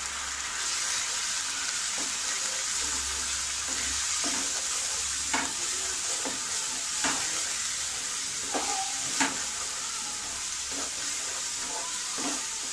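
Onion-tomato masala sizzling in oil in a non-stick pan while a spatula stirs spice powders into it. Scattered scrapes and taps of the spatula against the pan come through, the loudest a little past the middle.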